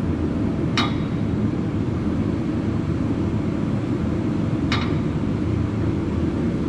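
Two sharp metallic clinks about four seconds apart, a steel bar knocking against race-car roll-cage tubing, over a steady low hum.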